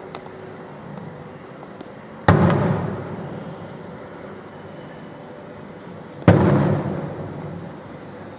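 Two aerial firework shells bursting about four seconds apart, each a sharp bang followed by an echoing rumble that fades over about a second.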